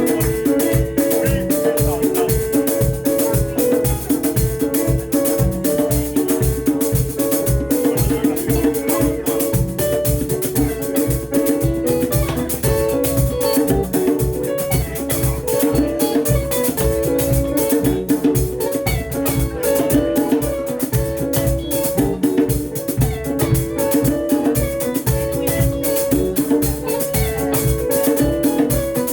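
Live band playing an instrumental stretch of a Swahili rumba song: repeating, interlocking guitar lines over bass and a steady drum beat.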